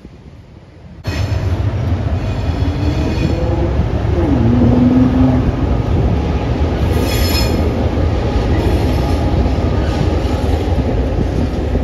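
Two NSWGR 42 class diesel-electric locomotives crossing a steel girder bridge: a loud, steady rumble of their diesel engines and wheels on the rails, starting abruptly about a second in. A brief high squeal, typical of wheel flanges, comes about seven seconds in.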